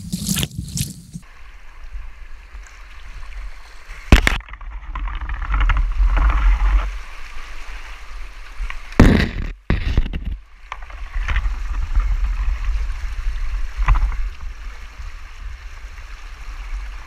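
Fast floodwater churning and gurgling around a camera held at the water's surface, with a steady deep rumble of turbulence and several sharp splashes, the loudest about four seconds and nine seconds in.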